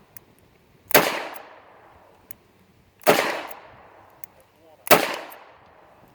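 Three shots from a Ruger SP101 2-inch five-shot revolver firing .357 Magnum handloads, about two seconds apart. Each shot is a sharp crack followed by a short echoing tail.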